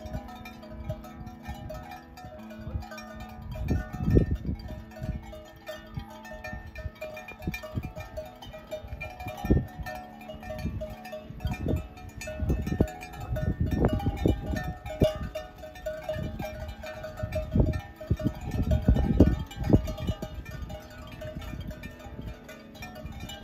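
Herd of goats moving along, with clanking bells and animal sounds, over soft chime-like background music.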